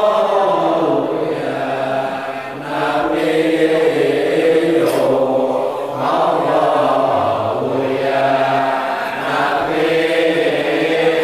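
Group of men chanting Arabic maulid verses together in long, drawn-out phrases a few seconds each, with brief dips between phrases.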